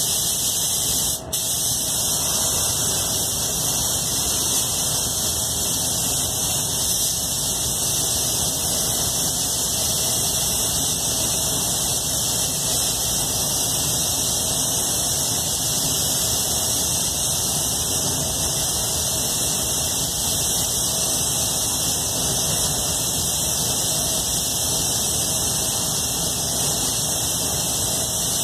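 Iwata Supernova spray gun hissing steadily as clear coat is sprayed, with a brief break in the air flow about a second in. A steady low rumble runs underneath.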